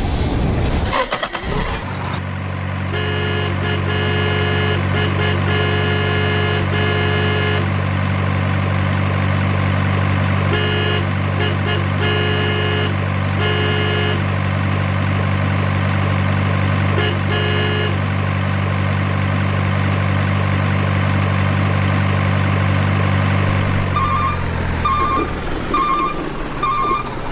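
Truck sound effect: a heavy engine running at a steady low idle, with several runs of short, rapid blasts from a multi-tone horn. Near the end the engine dies away and a higher beep repeats about twice a second.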